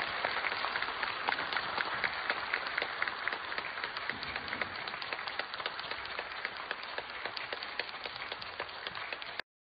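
Audience applauding: steady clapping from many hands, cut off suddenly near the end.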